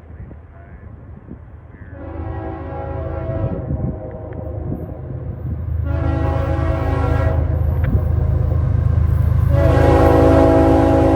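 A train's multi-tone air horn sounds three blasts as the train approaches. The third blast is held past the end, over a low locomotive rumble that grows steadily louder. Wind buffets the microphone in the first two seconds.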